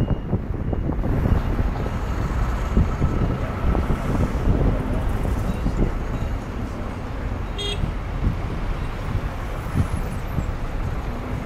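Road and traffic noise from a moving car, with wind buffeting the microphone of a camera held at the open window. A brief high-pitched toot sounds about two-thirds of the way through.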